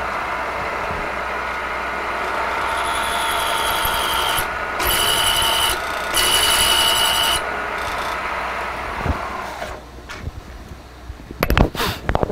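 Milling machine spindle turning a twist drill as it cuts into a stainless steel hammer head, drilling the hole for a 1/2-20 NF thread. A steady machine running sound carries a high-pitched whine from the cut that comes and goes in stretches between about three and seven seconds in. The running sound drops near the end, and a few sharp knocks and clicks follow.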